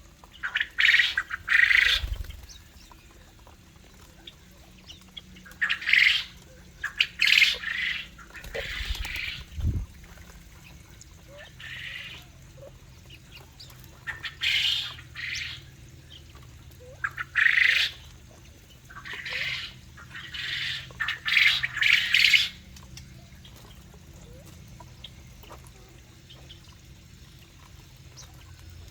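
Aviary birds squawking: about a dozen loud, harsh calls come in clusters, then stop about two-thirds of the way through.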